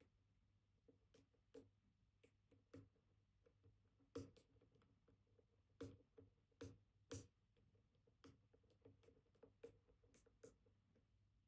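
Faint, irregular metallic clicks and taps of a dimple pick working the pins of a Kaba Titan Combi high-security dimple lock held under tension, about one or two clicks a second.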